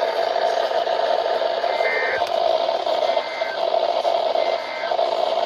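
Emergency Alert System end-of-message data tones on NOAA Weather Radio: three short buzzy two-tone digital bursts, about two, three and four and a half seconds in, marking the end of the alert, over a steady radio hiss.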